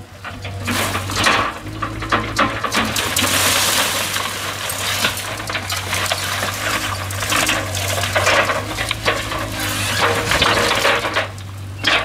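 Mini excavator demolishing a house: repeated crunching, cracking and metallic clatter as siding, roofing and wood are torn and broken, over the steady hum of the excavator's engine.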